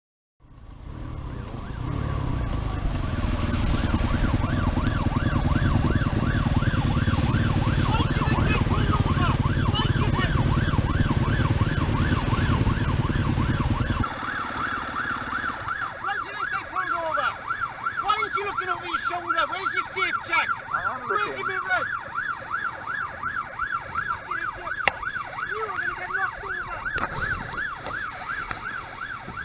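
Police car siren sounding in a fast up-and-down warble, heard over a heavy low rumble of engine and wind. The rumble drops away abruptly about halfway through, leaving the siren clearer.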